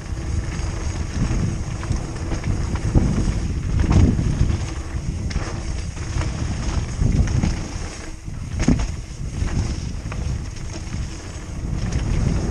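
Wind rumbling on a helmet-mounted camera's microphone during a fast mountain-bike descent on a gravel trail, with tyre noise and a few sharp knocks from the bike over bumps.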